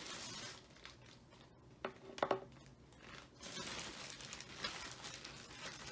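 Rustling and crinkling of things being handled and moved about, with two sharp clicks a little after two seconds in.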